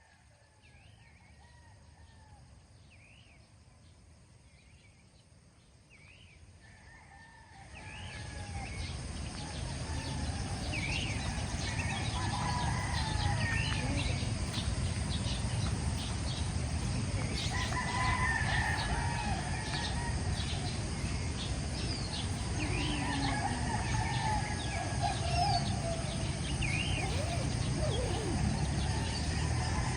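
Rooster crowing, with small birds chirping; a steady background noise swells up about eight seconds in.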